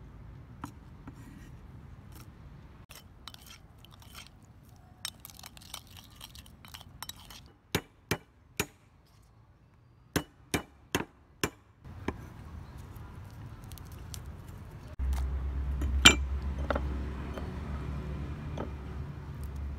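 Knife and cleaver knocking on a wooden chopping board: light tapping at first, then about seven sharp blows in under four seconds, and later one loud knock. A low steady rumble comes in over the last few seconds.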